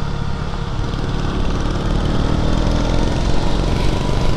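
KTM Duke 200's single-cylinder engine pulling uphill, its revs rising slightly through the middle, with a steady rush of wind on the microphone.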